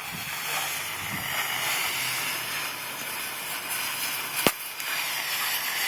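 Electric welding arc crackling and hissing steadily, with one sharp crack about four and a half seconds in.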